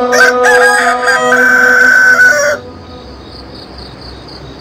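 A rooster crows once, a long crow of about two seconds that cuts off abruptly. After it, crickets chirp faintly and steadily.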